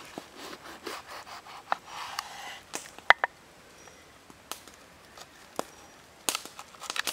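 Serrated knife sawing through a red bell pepper on a wooden cutting board: scraping strokes with sharp taps of the blade on the board, the loudest about three seconds in and a quick cluster near the end.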